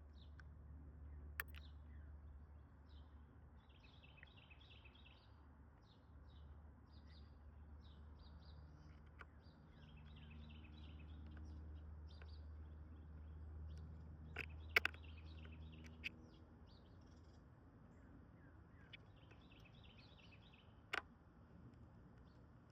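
Faint birds chirping over a low steady hum, with a few sharp isolated clicks: two close together about fifteen seconds in and one more near the end.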